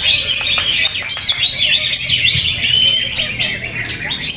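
Green leafbirds (cucak ijo) singing at contest pitch: a dense, unbroken stream of rapid chirps and whistled phrases, with several songs overlapping.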